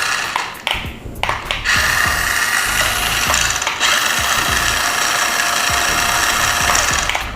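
Toy RC truck's small electric drive motor and plastic gears whirring, in a couple of short bursts and then running steadily for about five seconds before cutting off near the end.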